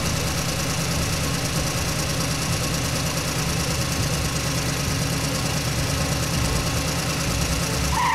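Heavy truck engine sound effect running steadily, a low, rough rumble.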